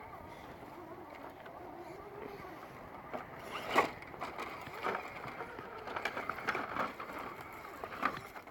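RC rock crawler's electric motor and drivetrain whining, rising and falling with the throttle. From about three and a half seconds in, several sharp knocks and clatters as the truck's tires and chassis hit rock.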